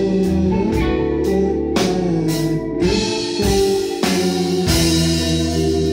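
Live rock band playing: electric guitar, a Rickenbacker electric bass holding low notes, and a drum kit striking about twice a second through the first half, with the cymbals ringing more steadily in the second half.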